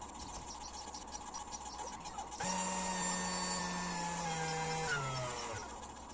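Motor whine of a homemade Arduino GRBL CNC mill. It starts suddenly about two and a half seconds in and holds a steady pitch. Its pitch then steps down twice and glides lower as the motor slows, and it stops just before the end.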